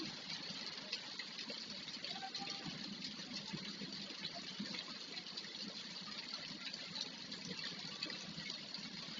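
Rain falling steadily, an even, continuous hiss of water.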